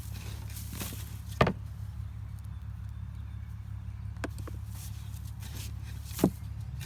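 Four sharp knocks, spread out, as potatoes are handled and set down during a potato harvest from a grow bag, over a steady low hum.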